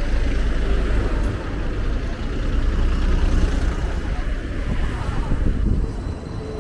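City street traffic heard from a moving bicycle: motor vehicles passing over a steady low rumble that eases slightly near the end.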